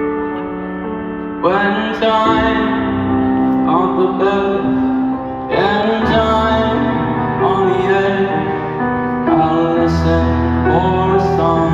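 Live concert music in a large arena: sustained keyboard chords that change every two seconds or so, with a reverberant echo.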